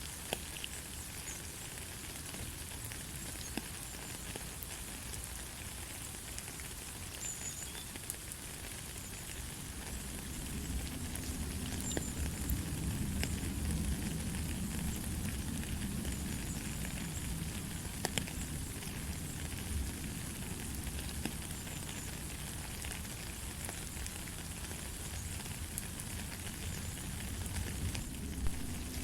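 Steady light rain, a soft hiss sprinkled with the small crackling ticks of individual drops. A low rumble swells up about a third of the way in and stays under the rain.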